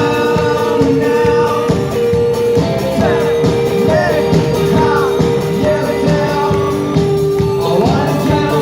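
Live band playing a song with a singer, over a held chord and a steady drum beat.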